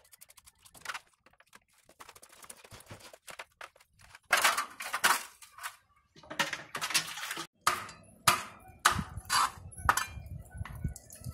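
A wet, live snakehead fish is handled in an aluminium basin with splashing and rustling, then a cleaver strikes a plastic cutting board in a series of knocks about two a second.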